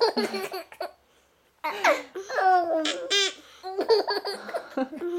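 Baby laughing in three bouts of high, squealing laughter, with a short pause about a second in.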